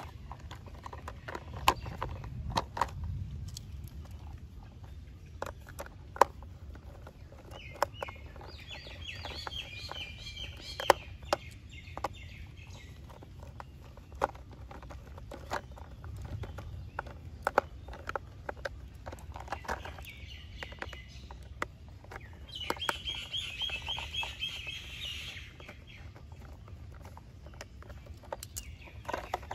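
Hard plastic parts of a toy dump truck being handled and fitted together with a screwdriver: scattered sharp clicks and knocks. A bird chirps in quick trills in the background, twice, in the middle and again later on.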